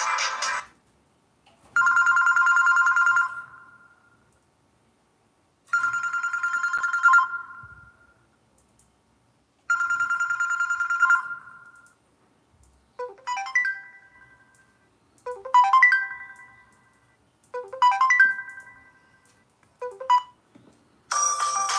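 LG KP500 mobile phone playing its built-in ringtones in turn. A tune cuts off just after the start, then a telephone-style ring sounds three times about four seconds apart. Then comes a tinkling melody of short chiming phrases, and a busier tune starts near the end.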